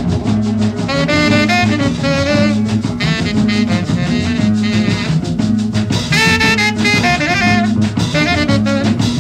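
Background music: an upbeat jazz tune with a melody line over a steady drum beat and a repeating bass part.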